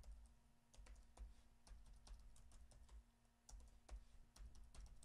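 Faint typing on a computer keyboard: single keystrokes at an uneven pace as a password is entered.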